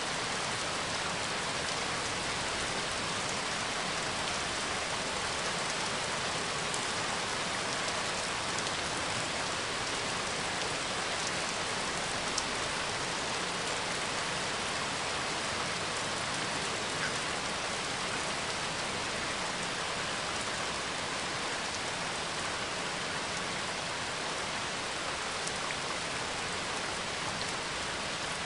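Steady rain falling, an even hiss of rain with a few scattered drop ticks, from a rain-and-thunder ambience recording laid over the video.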